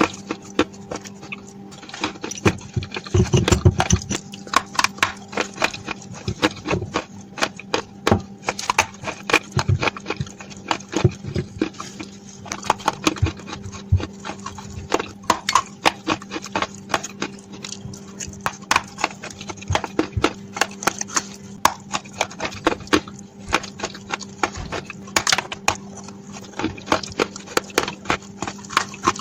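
Close-miked chewing of dry edible clay: a dense, irregular run of sharp crunches and mouth clicks, heaviest about three seconds in, over a steady low hum.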